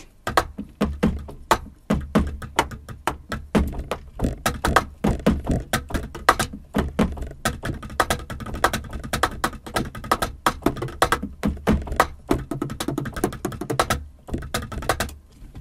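Drumming on a Yamaha DTX6K-3X electronic drum kit: fast, continuous stick strikes on the pads and cymbal pads with low kick thumps under them, stopping just before the end.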